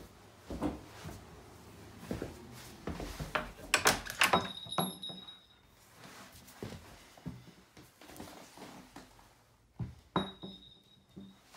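Scattered soft thumps and handling noise. About four seconds in comes a cluster of sharp clicks and knocks, followed by a high ringing tone lasting about a second. A second, shorter high ring comes near the end.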